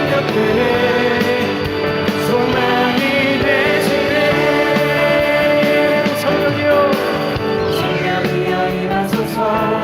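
Contemporary Christian worship music with guitar and band, an instrumental interlude between sung verses, with perhaps faint vocal lines.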